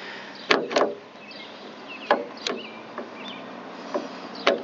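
Sharp clicks and knocks as a replacement door handle is pushed and worked against the van door's metal panel while being lined up with its bolt holes, seven or so irregular strikes, the loudest pair about half a second in.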